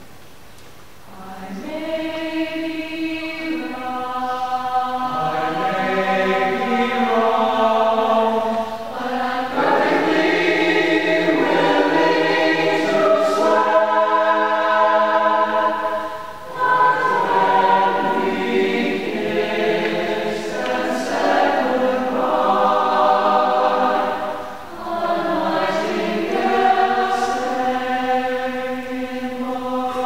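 Mixed choir singing a close-harmony a cappella jazz arrangement, sustained chords swelling and fading, with brief breaks between phrases.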